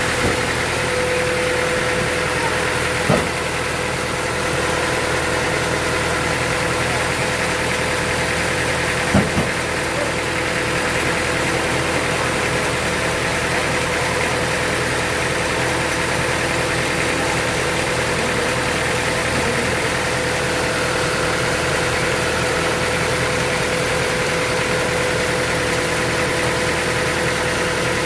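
Sawmill machinery running steadily with a constant hum and a steady mid-pitched tone, broken by two short knocks, one about three seconds in and one about nine seconds in.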